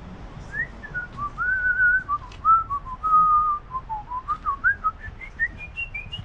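A person whistling a wandering tune, one clear note at a time with short slides between them, climbing higher near the end.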